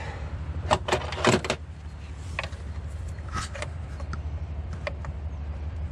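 Scattered clicks and knocks of hard plastic and metal as a hand tool works at a stubborn plastic vacuum valve and its connector in a BMW M47 diesel engine bay. A cluster of knocks comes about a second in, then sparser clicks follow, over a steady low hum.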